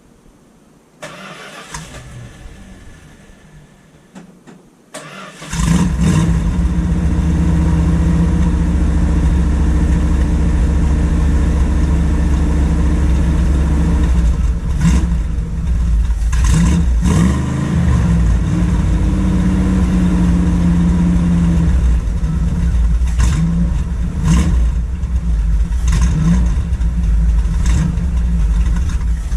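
1972 Dodge Demon's engine being cranked, catching about five seconds in, then running loudly with a couple of brief revs.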